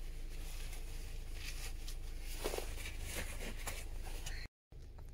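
Faint handling noises, scattered small clicks and rustles, over a steady low rumble, cutting out for a moment near the end.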